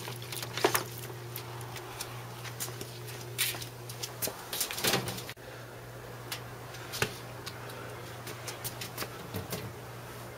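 Handling noises: scattered light knocks and clicks as a raw turkey is moved about in a foil roasting pan and set in a stainless-steel electric smoker, whose metal door is swung shut near the end. A steady low hum runs beneath.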